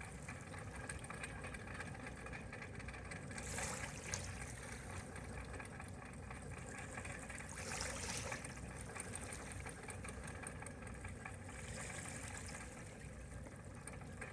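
A docking yacht's engine idling at low speed with a steady low rumble. A rushing hiss swells up and fades three times over it.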